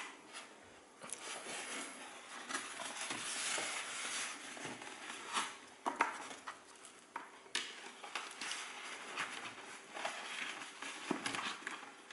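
Handling noise as a battery pack is fitted to the strap of FPV goggles on a foam mannequin head: rustling of the strap with scattered light clicks and knocks.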